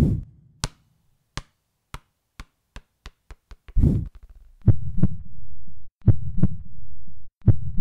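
Electronic intro sound design for a logo animation. It starts with a run of sharp clicks that speed up, then deep bass thumps in pairs with a low drone between them.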